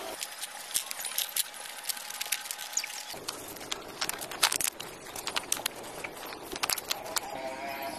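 Hollow clay bricks clinking and knocking as they are set down on a concrete floor and shifted against one another, in irregular sharp clicks.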